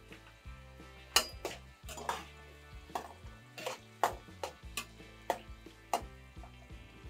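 Metal spoon knocking and scraping against an enamel pot, about a dozen sharp clinks, as eggplant cubes are stirred in deep-frying oil, with a faint sizzle of the frying underneath.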